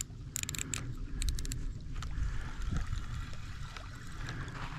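Wind buffeting the microphone at the water's edge, with short bursts of rapid ticking in the first second and a half from a fishing reel while a hooked carp is being played.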